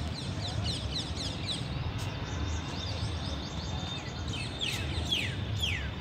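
Birds calling: a quick run of short high chirps sliding downward in the first second or so, then slower, longer downward-sliding calls about two a second in the last two seconds, over a steady low outdoor rumble.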